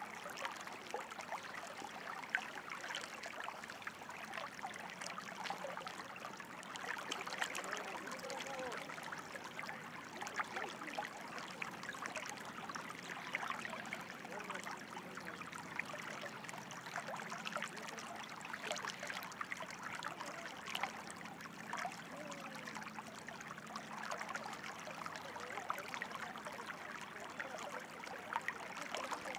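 Water in a small stream, trickling and gurgling steadily, with many small splashes.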